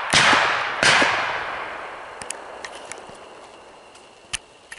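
Two shotgun shots fired at a flushed pheasant, about three-quarters of a second apart, each echoing off the woods and dying away over a few seconds. A single sharp click comes near the end.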